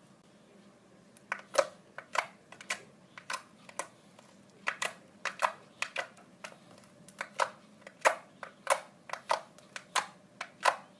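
Fingers poking and pressing slime, giving a run of sharp, sticky pops and clicks at roughly two a second, starting a little over a second in.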